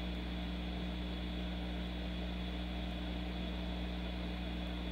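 Hot-air rework station blowing steadily through a wide nozzle onto a circuit board, an even hum with a hiss of air, as it heats a MOSFET's solder to melting point to desolder it.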